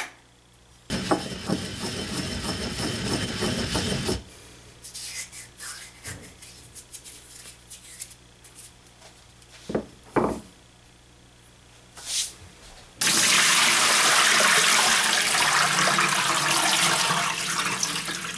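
Dried herbs and spices being ground in a stone mortar and pestle: a gritty scraping for about three seconds, followed by a few light knocks. Near the end a kitchen tap runs steadily into a stainless steel sink, splashing over a speckled enamel roasting pan as it is rinsed.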